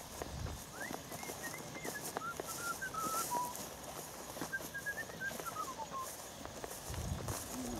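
A person whistling a short tune: two phrases of held notes, each stepping downward in pitch.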